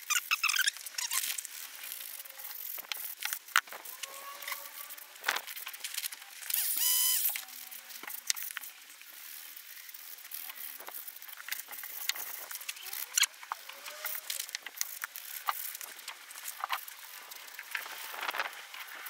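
Irregular small scrapes and clicks of a filler knife working masonry filler into cracks in a concrete fence post, with a short high squeal about seven seconds in.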